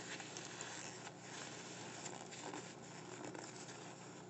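Faint rustling of a paper napkin as it is handled and pressed to the mouth, over soft chewing.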